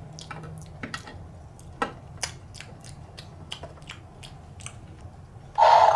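Small plastic toy figures being handled, giving light scattered clicks and taps. A loud sustained rasping sound starts near the end.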